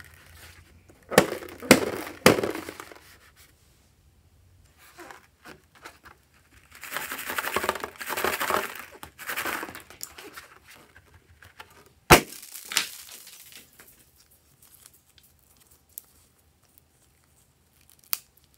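A rubber balloon handled and squeezed in the hands: a few loud rubbing strokes early, then a long stretch of crinkly rubbing. About twelve seconds in comes one sharp snap, and near the end a few light clicks as the balloon is opened over the bowl.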